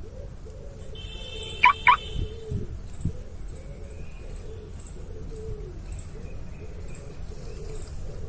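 Pigeons cooing over and over in the background, with two short, loud, high calls from another bird about one and a half seconds in. A steady low rumble runs underneath.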